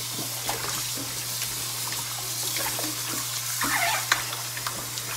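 Kitchen faucet running steadily into a plastic colander of cut pumpkin pieces in a stainless steel sink. Hands rinse the pieces under the stream, with a few light knocks among them. This is the rinse that washes the cal (pickling lime) off the soaked pumpkin.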